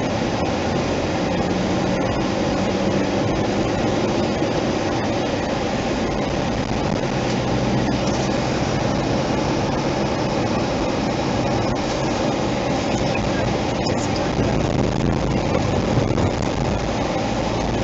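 A car driving at a steady speed, heard from inside the cabin: continuous road and tyre noise with a low engine hum under it.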